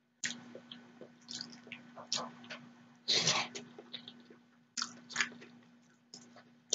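Close-miked eating sounds: wet mouth clicks and chewing of noodles with vegetables, with one louder, longer slurp of a noodle about three seconds in.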